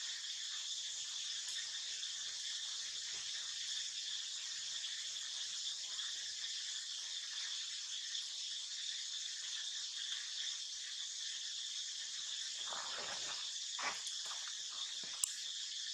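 Steady, high-pitched insect chorus from the forest, an even shrill drone. A short, louder, lower sound comes about thirteen seconds in, and a sharp click near the end.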